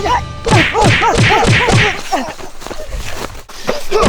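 A run of short, sharp vocal cries, about three a second, then a few quieter knocks and another cry near the end.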